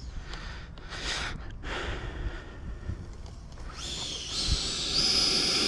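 Low wind rumble, then about three and a half seconds in a high electric whine comes up, stepping higher in pitch twice and then holding steady: the 90 mm electric ducted fan of an E-flite Viper RC jet spooling up.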